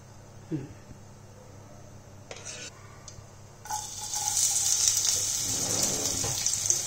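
Chopped onion tipped into hot oil in a frying pan, starting a sudden, steady sizzle a little over halfway through after a fairly quiet start.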